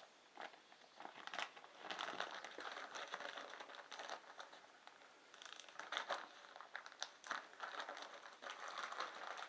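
Irregular crinkling and rustling with many small clicks, like something being handled close to the microphone.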